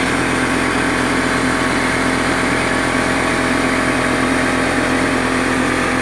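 Steady mechanical drone of a running motor, with a constant low hum and no change in level.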